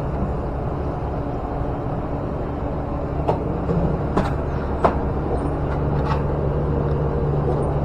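Steady low hum of machinery with a few sharp clicks and knocks, about four of them spread across the middle of the stretch.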